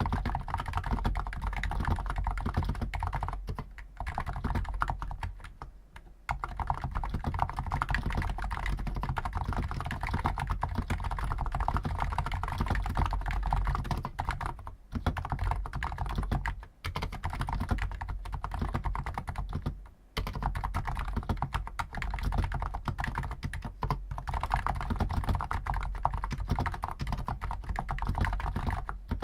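Fast continuous typing on a stock Hansung GTune CHL5 XRGB electrostatic capacitive keyboard with 50 g keys: a dense run of key clicks, broken by brief pauses a few times.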